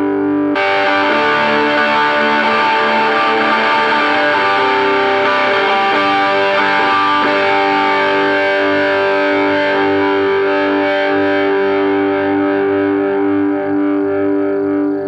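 Distorted electric guitar through a small combo amp, playing held, ringing notes and chords on one coil of a humbucker: the screw-pole coil, then the slug-pole coil after a sudden cut about half a second in. The two coils sound pretty much exactly the same.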